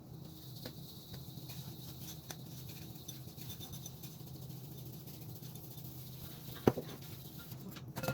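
A sifter scratching and pattering as white sugar is sifted, with a sharp knock about seven seconds in.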